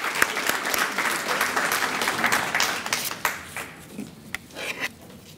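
Audience applause, many people clapping, dying away about three and a half seconds in, then a few faint knocks and rustles.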